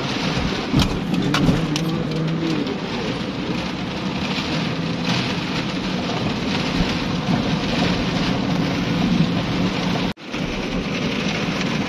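Heavy rain mixed with a little hail drumming on a vehicle's roof and windshield, heard from inside the cabin, with scattered sharp ticks of impacts and the engine's steady hum underneath. The sound cuts out for a moment about ten seconds in.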